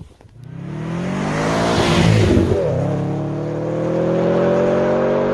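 Car engine accelerating: its pitch climbs from about half a second in, drops sharply at a gear change about two and a half seconds in, then holds and slowly climbs again.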